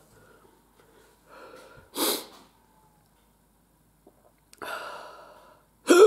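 A man hiccupping and breathing hard, hiccups brought on by hot chilli sauce. A short sharp hiccup comes about two seconds in, then a long noisy breath near the end, then a loud sudden hiccup at the very end.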